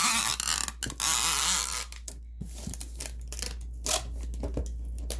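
Clear packing tape unrolling from a tape gun along a cardboard box seam: two long pulls of about a second each in the first two seconds. After that, a hand rubs and presses the tape onto the cardboard, with soft scratches and light taps.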